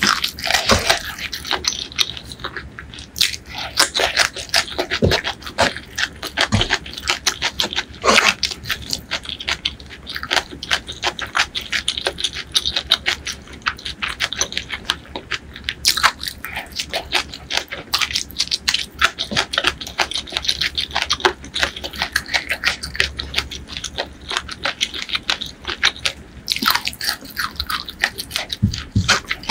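Close-miked chewing of a handful of curry rice with raw bean sprouts: a steady stream of crunchy, wet mouth clicks.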